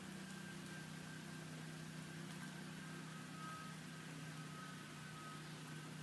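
Steady low mechanical hum of distant machinery, with a faint steady high tone above it and, from about halfway, a short high note repeating about twice a second.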